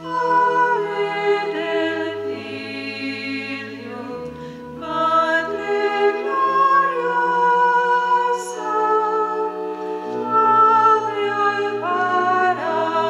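Choir singing a hymn over sustained low bass notes, the held chords moving in steps every second or two.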